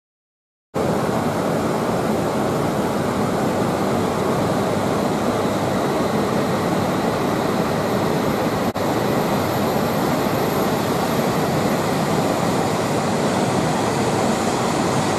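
Steady noise on a Shinkansen platform as a coupled E5 and E6 series train departs. It cuts in abruptly about a second in and drops out for a moment near the middle.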